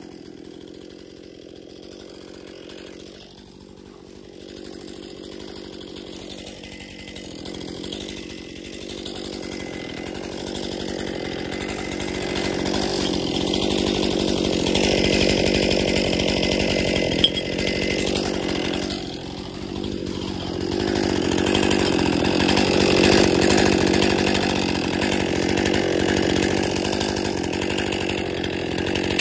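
Chainsaw running under load, cutting into a standing spruce trunk to fell it. It grows louder over the first half, eases off briefly near the twentieth second, then bites in again.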